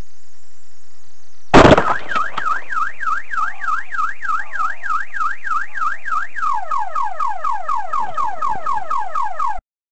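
A sudden loud bang, then a car alarm siren warbling up and down about four times a second. At about two-thirds of the way through, it switches to fast falling chirps, then cuts off abruptly.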